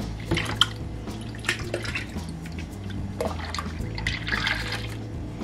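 Sorrel drink poured in a thick stream from a bowl into a large stainless-steel pot already full of liquid, splashing and gurgling irregularly.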